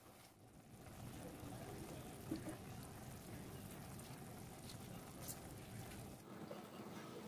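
Faint sizzling of minced-meat keema cooking in a frying pan, with a few light clicks.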